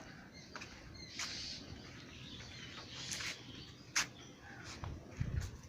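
Faint outdoor ambience with scattered clicks and short rustling noises, a sharp click about four seconds in and a low bump near the end.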